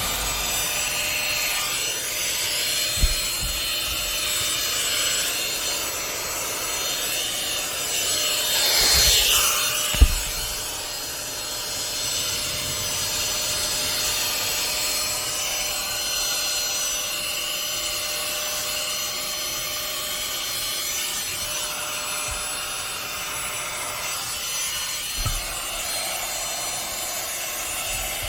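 Vacuum cleaner running steadily while it is worked over a car's interior, a constant suction hiss with a faint whine. The suction sound swells and changes about eight seconds in, and a sharp knock comes about ten seconds in.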